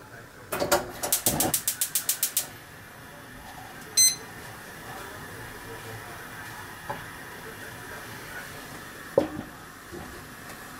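A quick, even run of about eight clicks, then a single short electronic beep from a digital kitchen timer as its 15-minute countdown starts, over the steady low hiss of water heating in a frying pan. Near the end a glass lid knocks against the pan as it is set on.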